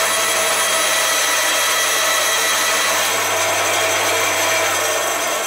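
Band saw running steadily, a low motor hum under a broad whir, its blade taking a light rip cut through a strip of wood fed along the fence.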